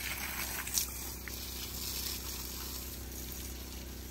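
Garden hose spraying a steady stream of water onto wet soil and mulch, filling the watering ring around a tree so the water soaks down, an even splashing hiss. A short click sounds just under a second in.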